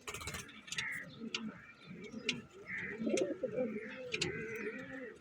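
Domestic pigeons cooing over and over in low, wavering calls, the courtship cooing of a pigeon pair. Several sharp clicks and a few higher chirps come in between.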